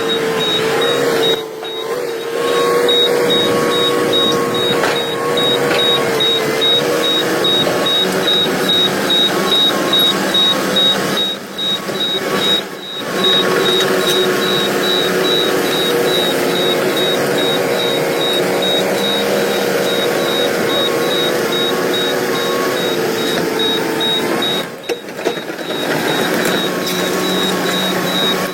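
Heavy earthmoving machinery running steadily, its engine and hydraulics giving a wavering whine, with a fast high-pitched beeping over it.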